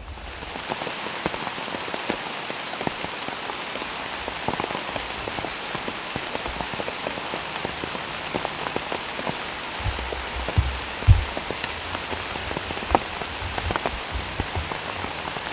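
Raindrops pattering steadily on leaves and the forest floor, a dense even patter with a few louder drops and low knocks about ten to eleven seconds in.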